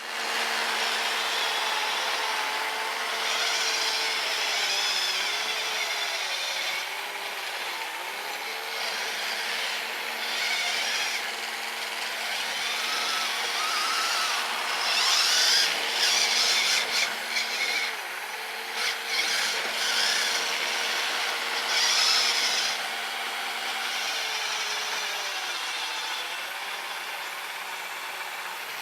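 Small brushed electric motor of an RC snowblower whining steadily, its pitch dipping briefly now and then, with hissing bursts as the auger churns and throws powder snow.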